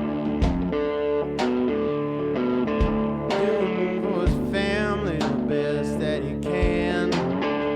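Background music: a guitar-driven blues-rock song with drum hits keeping the beat.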